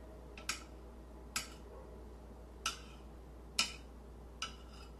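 Five sharp clinks, roughly a second apart, of a Danish dough whisk's metal wire head knocking against the rim of a glass bowl.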